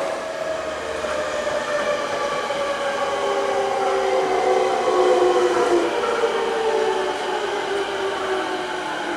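Electric commuter train pulling into a station, its motor whine falling steadily in pitch as it slows, over the rumble of the cars; loudest about five seconds in.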